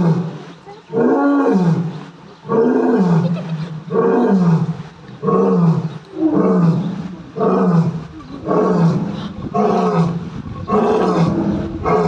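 Lion roaring in a long bout: a regular series of about nine roars, each a little over a second apart, coming slightly faster toward the end.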